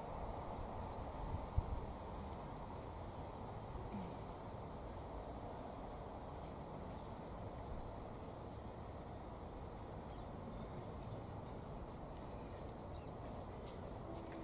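Outdoor allotment ambience: a steady low background rush with faint, high bird chirps now and then.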